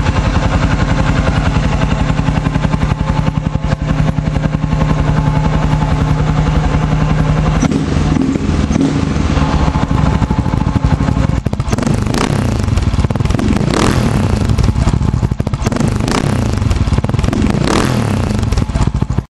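2006 Husqvarna TE 610's single-cylinder four-stroke engine running through a LeoVince aftermarket exhaust while warming up: a steady idle for the first half, then several throttle blips with the revs rising and falling. The sound cuts off suddenly at the end.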